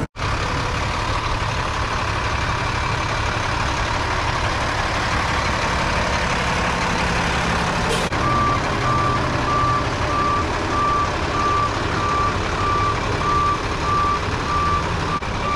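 A heavy vehicle's engine running steadily, joined about halfway through by a backup alarm sounding a steady row of evenly spaced beeps of one pitch.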